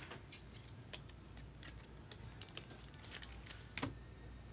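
Faint, irregular light clicks and taps of trading cards and their plastic holders being handled, with one sharper click near the end.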